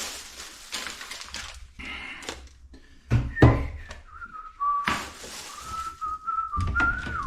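A person whistling a string of short, wavering notes at close to one pitch in the second half, with thumps and rustling from handling and movement.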